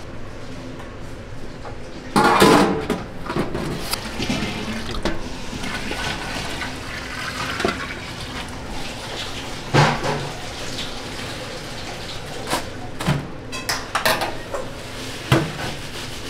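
Water running and splashing while pig intestines are washed in a stainless steel sink, then water poured into a steel pot, with a few sharp clanks of metal bowls and handling.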